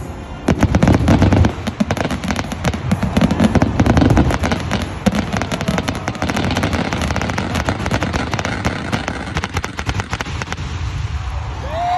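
Fireworks finale barrage: a rapid, dense run of aerial shell bursts with deep booms and sharp crackling. It is heaviest in the first few seconds and thins out toward the end.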